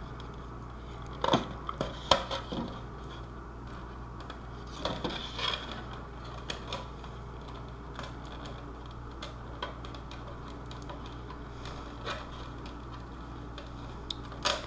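Scattered clicks, taps and short scrapes of a hard plastic armour piece being handled while a self-adhesive Velcro piece is picked and peeled off its inside, over a steady low hum.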